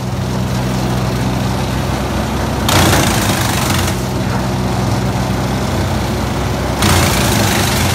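Linddana TP 150 wood chipper with its Kohler 1006 engine running steadily. Two loud surges of rushing noise rise over the engine, one about three seconds in lasting roughly a second, and another near the end.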